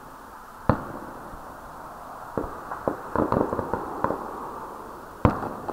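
Aerial fireworks exploding: a sharp bang about a second in, a run of rapid crackling pops in the middle, and another loud bang near the end.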